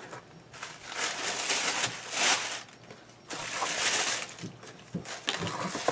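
Rustling and crinkling of packaging as a mailed subscription box is unpacked, in several bursts, with a few light taps near the end.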